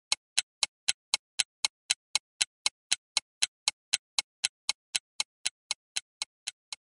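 Clock-like ticking sound effect, about four sharp ticks a second, marking time while an interactive menu waits for a choice. The ticks begin to fade near the end.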